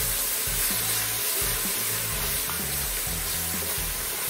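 Tomato paste and bouillon base sizzling in a hot enamelled cast-iron Dutch oven as they are stirred with a wooden spatula, a steady hiss. Background music with a shifting bass line plays under it.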